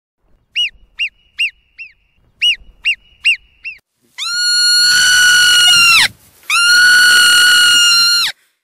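Marmot alarm whistling: two runs of four short, sharp chirping whistles, then two long, shrill held whistles that drop in pitch as each one ends.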